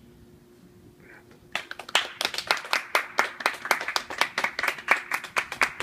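Applause: hand clapping begins about a second and a half in, after a short quiet pause, and goes on in quick, sharp claps.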